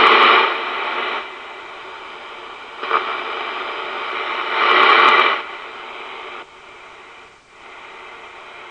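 Royce 639 CB radio's speaker giving steady AM receiver static and hiss, loud at first, dropping about half a second in, swelling again around three to five seconds, then stepping down quieter.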